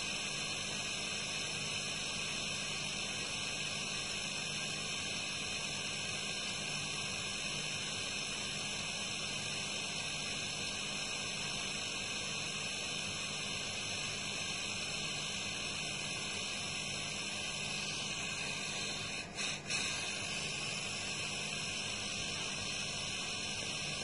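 Hermetic refrigerator compressor, rigged as an air compressor, running steadily: a steady hum with a hiss above it as it pumps air into an R22 refrigerant cylinder and the pressure slowly builds.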